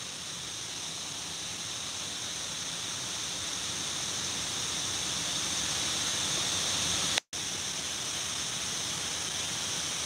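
Steady rushing of the Shiraito Falls waterfall, a wide curtain of falling water, slowly growing louder, with a brief total dropout of the sound about seven seconds in.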